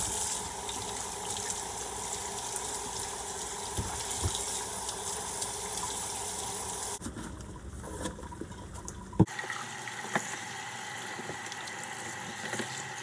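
Kitchen faucet running water onto bell peppers in a stainless steel sink as they are rinsed and rubbed clean by hand, with a few sharp knocks, the loudest about nine seconds in.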